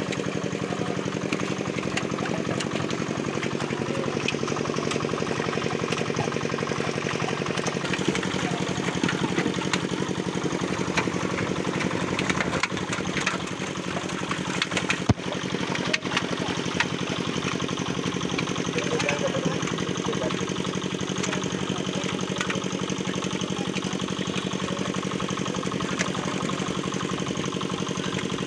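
An engine running steadily under the splashing of many fish thrashing in a net drawn tight in a pond, with scattered sharp splashes and knocks.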